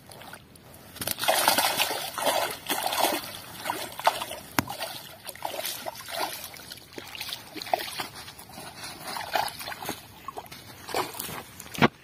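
Water splashing and sloshing in irregular bursts. It starts about a second in, is loudest over the next couple of seconds, and ends with a sharp splash near the end.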